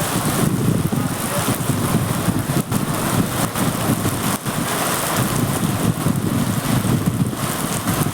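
Heavy rain falling: a loud, steady rushing noise with a low rumble that keeps rising and falling.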